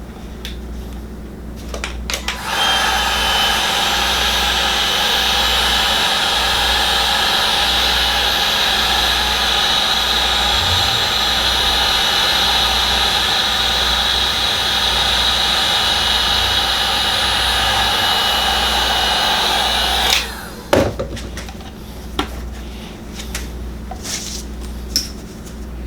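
Electric heat gun switched on and running steadily, with a fan whine and a thin high tone, for about eighteen seconds, then cut off, shrinking heat-shrink tubing over crimped wire joints. A few clicks and handling knocks come before it starts and after it stops.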